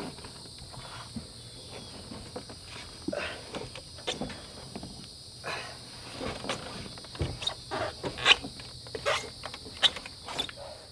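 Someone climbing out of a truck's rooftop tent and down its ladder: a run of knocks and clanks from feet and hands on the rungs, loudest in the second half, over a steady high insect buzz.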